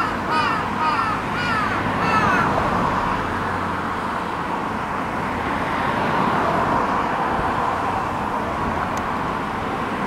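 A crow cawing in a quick run of about five calls over the first two and a half seconds, a laughing-sounding series, over a steady background hum of urban traffic.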